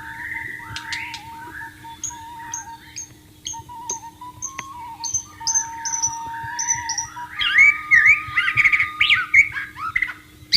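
White-rumped shama (murai batu) singing: a string of short, falling whistled notes about twice a second, then a louder burst of rapid, varied phrases in the second half. Under it a bamboo suling flute plays soft held notes.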